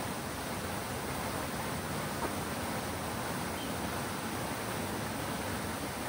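Fountain water splashing in a steady, even rush.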